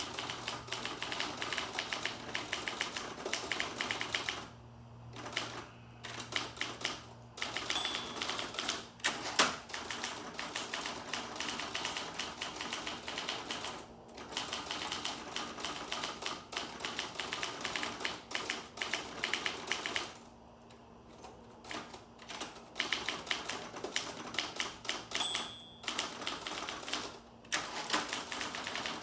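Olympia SG1 manual typewriter being speed-typed: a rapid, dense clatter of typebars striking, broken by two short lulls. Twice a brief ring sounds, like the margin bell near the end of a line.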